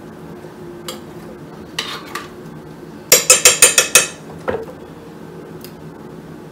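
A metal spoon scraping and clinking while scooping grape jelly into a slow cooker. About three seconds in there is a quick run of about eight sharp taps on the slow cooker's pot, then a single tap.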